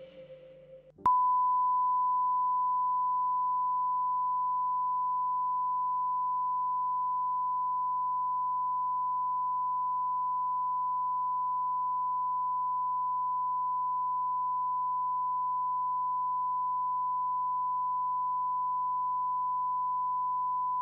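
Television line-up test tone: a steady 1 kHz sine tone broadcast with colour bars while the channel is off the air for maintenance. It cuts in with a click about a second in, after the fading tail of a lower beep, and then holds unchanged.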